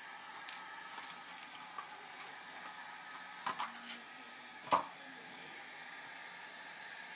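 A few light plastic clicks and taps as the body shell of a Losi Micro 1/24 RC car is lifted off its chassis, the loudest a single sharp click a little past the middle, over a steady faint hiss.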